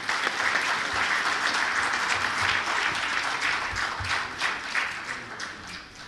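Audience applauding, a dense steady clapping that begins to taper off near the end.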